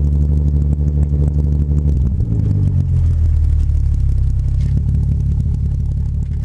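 Volkswagen VR6 narrow-angle V6 exhaust picked up by a lav mic mounted at the exhaust, running steadily while driving; about two seconds in the engine note drops and settles into a lower steady drone.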